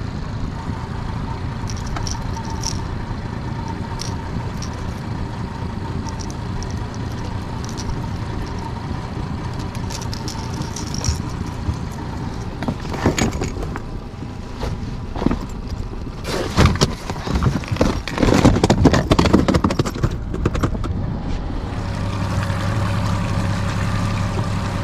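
Honda 30 hp four-stroke outboard motor running steadily. About halfway through come several seconds of irregular knocking and rattling in the boat, and near the end the motor settles into a steadier, deeper hum.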